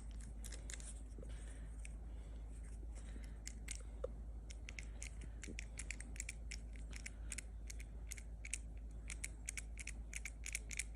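Repeated irregular clicking and rattling of a smart door lock's handle and latch being worked over and over, growing busier in the second half; the latch is not working.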